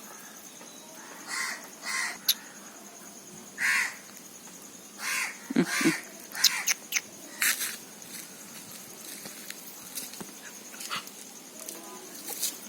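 A series of short, harsh animal calls, about a dozen, coming thickest a third of the way in and then thinning out, over a faint steady high whine.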